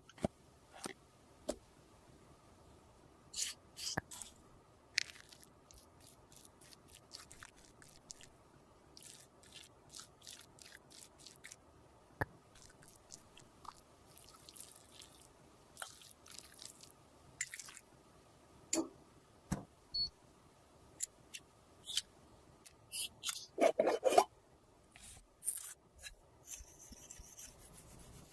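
Scattered short clicks, taps and soft scrapes of small tools working cosmetic paste and handling makeup cases, close-up ASMR handling sounds. Near the end comes a brief denser run of crackly scraping, the loudest part.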